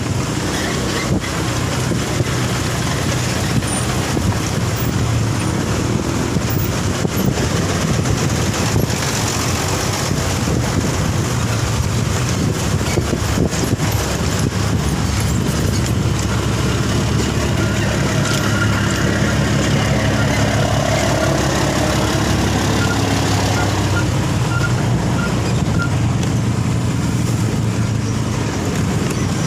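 Motor vehicle driving along a road: steady engine hum and road noise.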